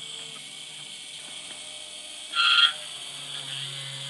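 Drilling machine running steadily with its bit cutting into a metal plate, a low motor hum under a high hiss. About two and a half seconds in comes a short, loud squeal.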